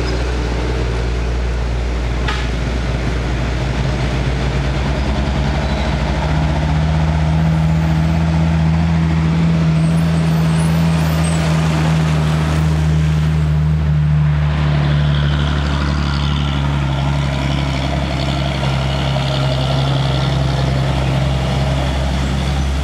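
Heavy diesel cargo trucks driving past close by, their engines running with a steady low hum that swells a little around the middle as one truck goes right alongside.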